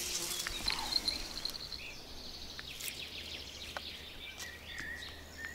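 Outdoor ambience of birds and insects: a few short chirps and a faint high buzz, with scattered small clicks and taps throughout.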